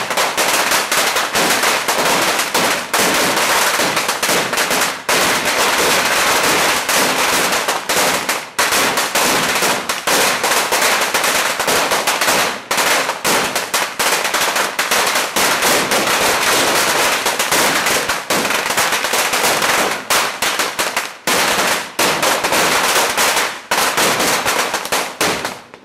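Firecrackers going off in a dense, rapid crackle of bangs, nearly without pause, with a few short breaks and dying away at the very end.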